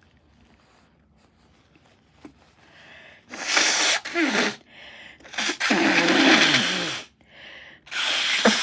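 A person with a head cold sneezing three times in a row, the first about three seconds in after a sharp breath in, the last near the end, each a loud wet burst, some with a falling voiced cry.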